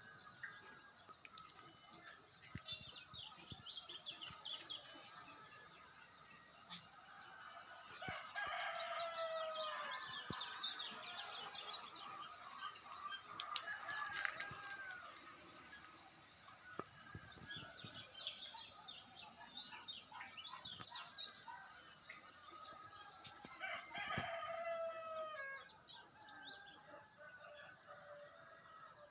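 A rooster crowing, with long drawn-out crows about eight seconds in and again near the end, over steady high chirping of small birds.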